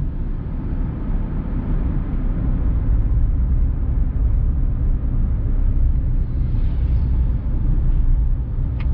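Steady low rumble of a car driving at highway speed, heard from inside the cabin: engine and tyre road noise.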